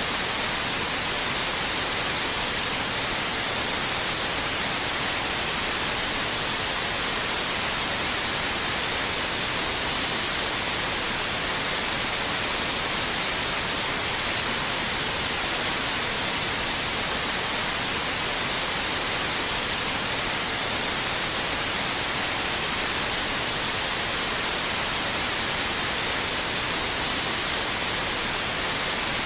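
Steady white noise: an even, unbroken hiss, brightest in the high end, holding one level.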